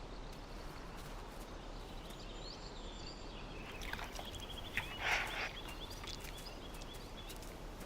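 Quiet outdoor ambience with small birds calling in the middle of the stretch, and a brief rustling burst about five seconds in.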